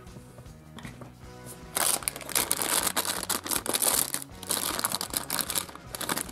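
Foil blind-bag packet crinkling as it is handled and opened by hand, starting about two seconds in. Quiet background music plays throughout.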